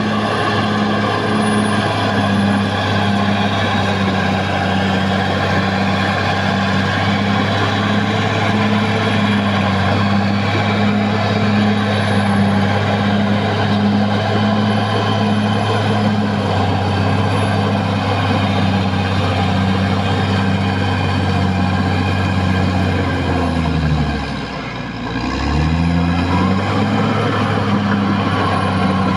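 Caterpillar D6R XL bulldozer's diesel engine running steadily under work. About 24 seconds in, the engine speed sags and the sound briefly drops in level, then picks up again, with a smaller dip near the end.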